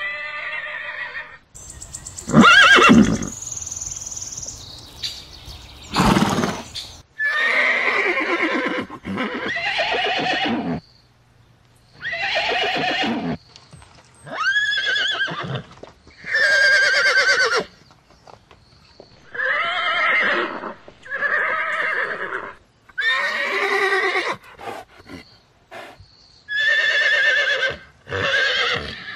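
Horses whinnying and neighing, about a dozen separate calls of roughly a second each with short pauses between them, each call wavering in pitch.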